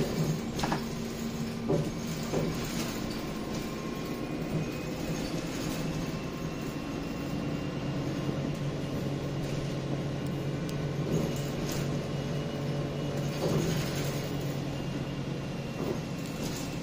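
Interior of a MAN 18.240 single-deck bus under way: the rear engine and drivetrain drone steadily, with a faint high whine that slowly rises and falls through the middle. Loose interior fittings rattle and knock now and then, most often near the start.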